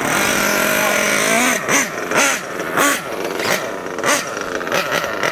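Kyosho USA-1 Nitro RC monster truck's KE25 SP2 glow engine running, held steady for about a second and a half and then revved up and down over and over in quick throttle blips.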